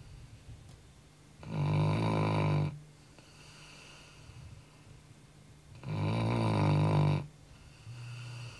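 Labrador retriever snoring in its sleep: two loud snores about four seconds apart, each over a second long, with quieter breathing between and a softer snore starting near the end.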